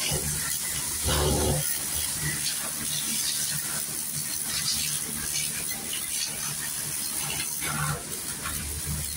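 Water spraying steadily with a hiss, a low hum running beneath it.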